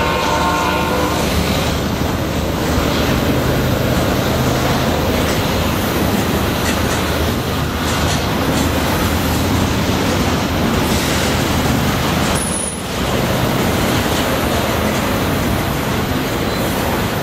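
Double-stack intermodal well cars of a BNSF freight train rolling past at speed, a steady rumble of steel wheels on rail. The last note of a train horn fades out about a second in.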